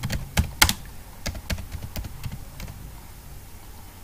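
Typing on a computer keyboard: a string of irregular key clicks, the loudest about half a second in, growing fainter toward the end.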